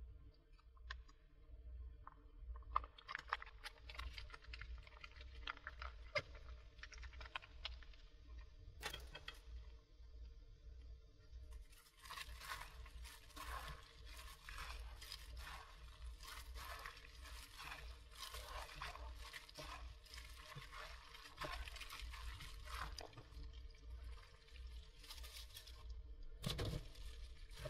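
Gloved hand mixing noodles with kimchi and red chili-paste sauce in a plastic bowl: faint, irregular mixing noise of the plastic glove working through the wet noodles, in two long stretches. There is a sharp knock about nine seconds in and another near the end.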